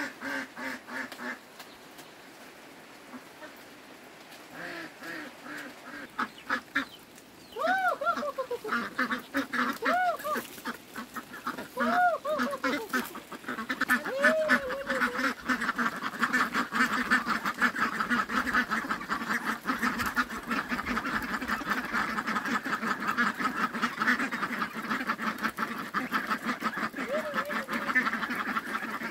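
A flock of domestic ducks quacking. A few separate drawn-out calls come at first, then from about halfway a continuous chorus of rapid quacking from many birds.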